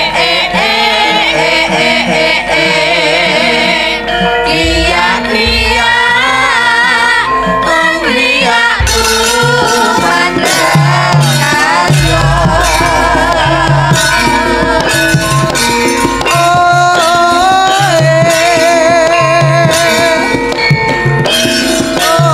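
Javanese gamelan playing a continuous piece: bonang kettle gongs struck in running patterns, with kendang drum strokes and a wavering sung melody over them.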